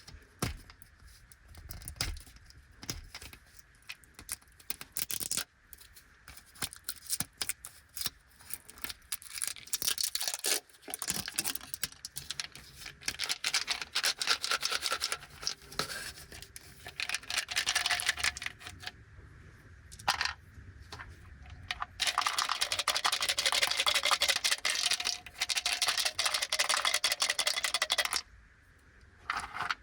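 Crinkly plastic packets of Anpanman Mini Mini Ramune candy being handled and torn open, with irregular crackling, rustling and small clicks. Near the end comes several seconds of continuous crinkling before it drops away.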